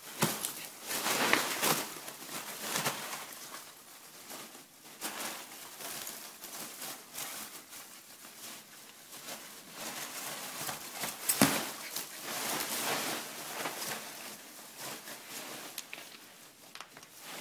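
Polystyrene packing peanuts rustling and squeaking in a cardboard box as a small dog digs and burrows through them, in irregular bursts. The rustling is loudest near the start and about eleven seconds in.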